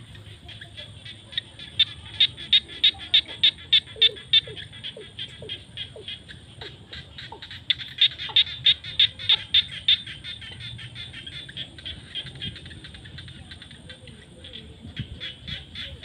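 Frog chorus in flooded rice paddies: many fast, pulsed calls overlapping. Two loud runs, each of about three pulses a second, stand out about two seconds in and again about eight seconds in.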